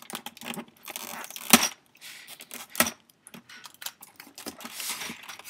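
Hands working at the tape on a clear plastic box lid: rustling and scratching with a string of sharp plastic clicks, the loudest about a second and a half in and another near three seconds.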